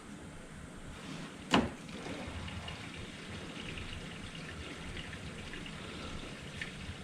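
Coolant being drawn into the engine's cooling system through a vacuum coolant filler, a faint trickle with fine crackling. A sharp click about one and a half seconds in.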